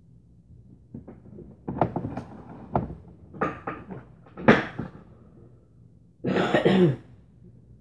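Several sharp knocks and thuds in the first five seconds, followed by a cough near the end.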